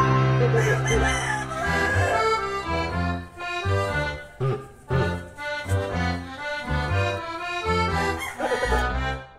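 Background music with pitched melody lines over a steady bass beat.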